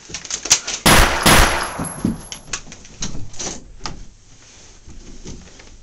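A run of sharp knocks and hits from a scuffle, with one loud crash about a second in, then fewer and fainter knocks.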